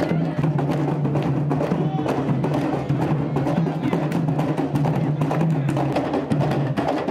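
A parade drum troupe playing large barrel drums slung on straps, a dense, steady rhythm of many drum strokes and sharp stick clicks.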